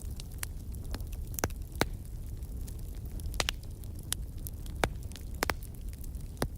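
Wood fire in a fireplace crackling: irregular sharp pops and snaps, a handful of them louder, over a low steady rumble.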